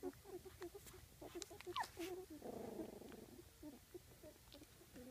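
Young golden retriever puppies making faint squeaks and grunts, one after another, with a short falling whine about two seconds in.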